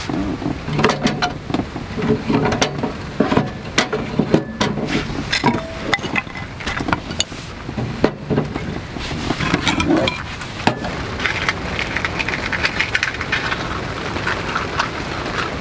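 Split firewood pieces knocking and clattering against each other and the metal box wood stove as they are stacked into its firebox. For the last few seconds, a steady crackling hiss.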